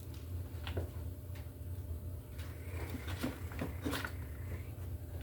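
A handful of light clicks and knocks from hands working NM cable into a plastic electrical box, most of them bunched a little past halfway, over a steady low hum.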